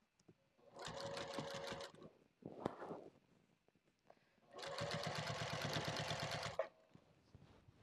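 Sewing machine stitching in two short runs, the second about twice as long as the first, with rapid, even needle strokes.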